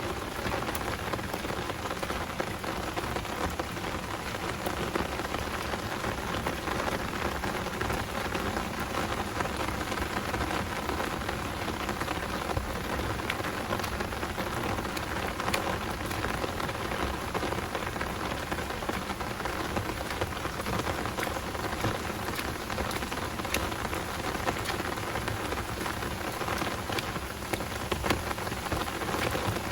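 Heavy rain pouring steadily, with many sharp individual drop hits scattered through it.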